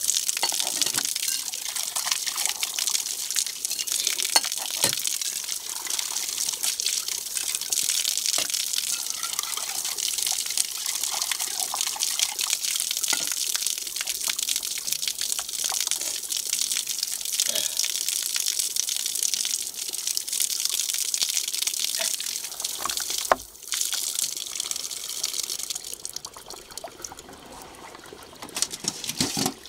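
Water gushing steadily from an outdoor standpipe tap onto concrete while metal pots and bowls are rinsed under it, with scattered sharp clinks of metal. The flow falls away about three seconds before the end.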